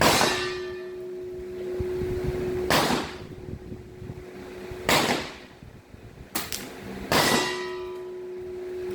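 Airgun shots, four of them about two and a half seconds apart, each with a metallic ringing clang as the pellet hits a steel target. A short click comes between the third and fourth, and a steady low hum runs underneath.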